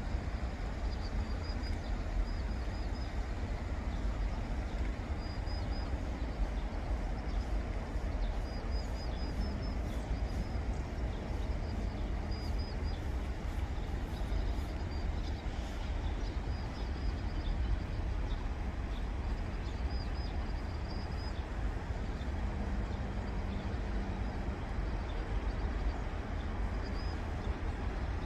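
Steady low rumble and hiss of outdoor background noise, with a small bird's short high chirps coming in brief clusters every second or two.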